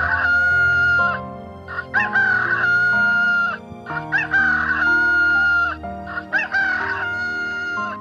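Rooster crowing four times, each crow a long held note that rises at its start, over background music.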